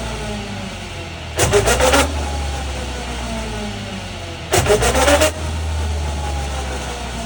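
Car differential making an abnormal gear noise while driving: a steady low drone with a faint whine sliding down in pitch. Twice, about three seconds apart, a louder rough burst lasting about half a second comes in with a rising pitch.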